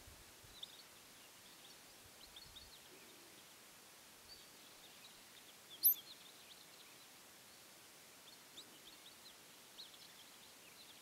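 Faint, scattered high chirps with one loud, short, sharp high-pitched call about six seconds in, from a small animal or bird.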